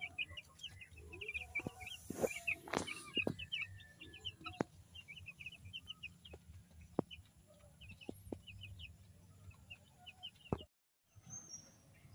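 Young broiler chicks peeping, a rapid run of short high chirps, with a few light knocks among them. The peeping cuts off near the end.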